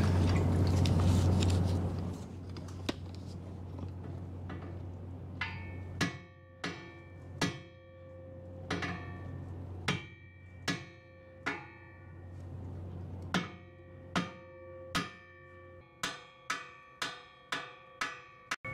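Hammer taps on a boat propeller held under a hydraulic puller's pressure, each strike ringing with a metallic tone; the shocks are meant to break the propeller free of its tapered shaft. About sixteen taps, coming faster near the end, after a steady hum that fades over the first two seconds.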